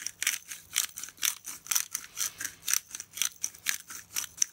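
A hand-twisted pepper grinder grinding black peppercorns, a run of quick gritty crackling clicks at about five a second.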